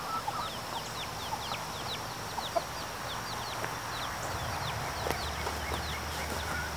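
Young chicks peeping in a steady run of short, high notes that fall in pitch, a few a second, with hens of the backyard flock clucking.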